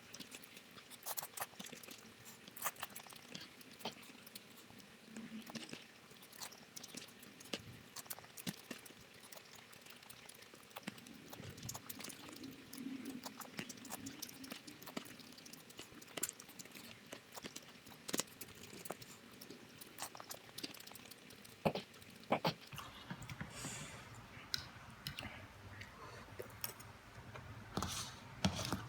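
Close-up mukbang eating sounds of instant noodle soup and rice being chewed, with many small sharp clicks scattered throughout. A low hum comes in about two-thirds of the way through.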